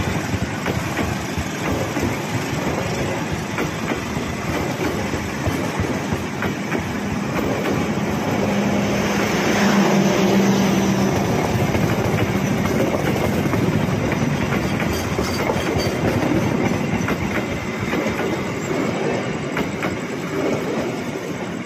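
Passenger coaches of a train passing close by, a steady heavy rumble of wheels running over the rails that fades near the end as the last coach draws away.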